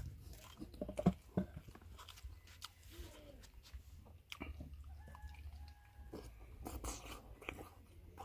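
Someone chewing food, with irregular soft crunches and wet mouth clicks.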